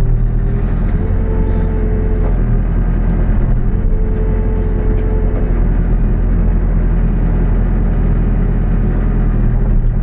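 New Holland B95B backhoe loader's diesel engine running steadily, with a higher whine that swells twice, about a second in and again around four seconds in.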